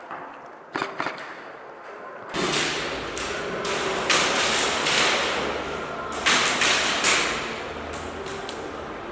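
Airsoft gameplay heard on a player's camera: a few sharp clicks, then, from a couple of seconds in, loud rustling movement noise broken by scattered sharp cracks and taps.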